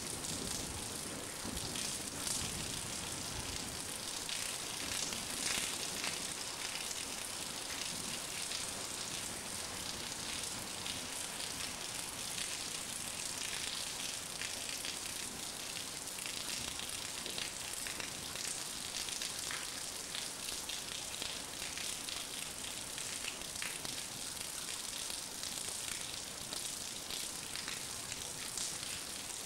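Heavy rain falling steadily in a thunderstorm, a dense hiss of patter with many small drop ticks. A low thunder rumble dies away in the first second.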